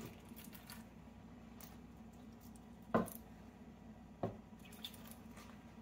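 Two light knocks of kitchenware being handled, about three seconds in and again a second later, over a faint steady hum.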